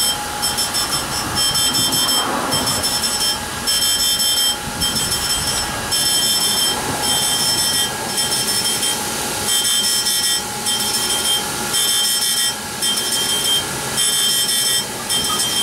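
Surface grinder wheel grinding a batch of hardened O1 tool-steel washers under flood coolant, taking them down through the mill scale and oxide layer left by heat treatment. A high-pitched grinding whine cuts in and out every fraction of a second over the steady hum of the machine.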